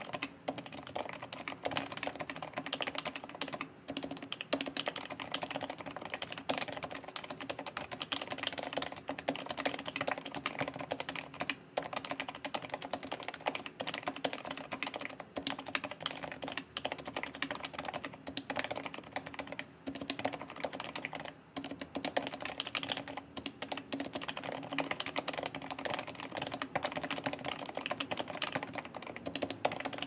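Fast, continuous typing on a Live Oak keyboard built with Topre-style switches: 60 g dome switches with lubed sliders and silencing rings in a POM plate, gasket-mounted, under HHKB printed keycaps. The keystrokes come in a dense stream with a few short pauses.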